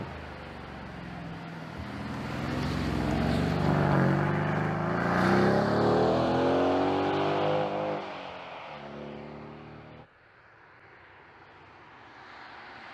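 The twin-turbo V8 of a Mercedes-AMG GLC 63 S accelerating hard past and away, its note climbing steadily in pitch before dropping to a lower note about eight seconds in. The sound cuts off suddenly about ten seconds in, and a quieter approaching car builds toward the end.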